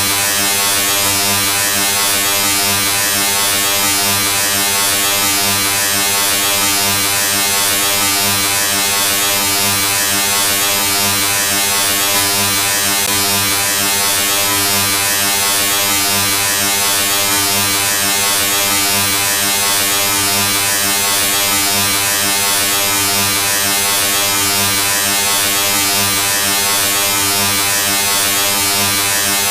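A steady electric buzz, a low hum with a hiss above it, running unchanged without a break.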